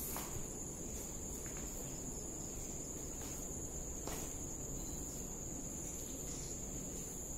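Night insects chirring in one steady, high, unbroken tone, with a couple of faint knocks about three and four seconds in.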